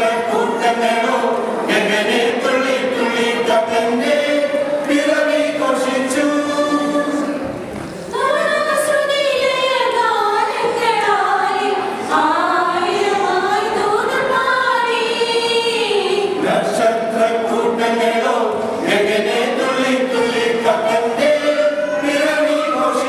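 Mixed choir of women and men singing, with long held notes and a brief break about eight seconds in.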